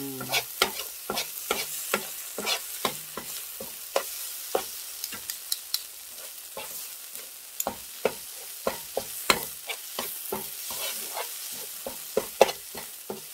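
Spatula scraping and knocking against a nonstick frying pan in irregular clicks, a few a second, as a garlic and chili-paste seasoning is stir-fried, with a faint sizzle underneath.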